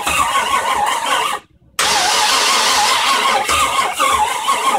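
V8 engine in a 1955 Chevrolet truck turning over on its first start attempt, a loud rhythmic cranking. The sound cuts out abruptly for a moment about a second and a half in, then picks up again.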